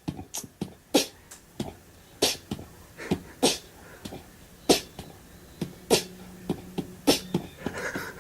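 A series of short, sharp clicks, about a dozen at uneven intervals, some much louder than others.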